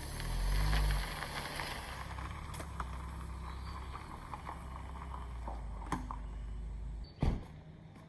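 Car engine running, revving briefly in the first second, then idling steadily. It cuts off about seven seconds in, followed right after by a single loud thump.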